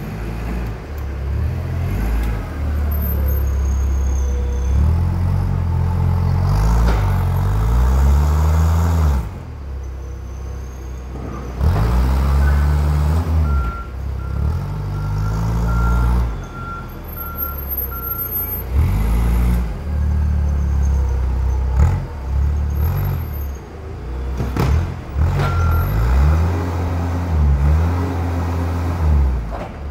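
Forklift clamp truck's engine revving up and falling back again and again while it works, its hydraulics lifting and clamping pallet loads. A reversing beeper pulses about twice a second for several seconds midway.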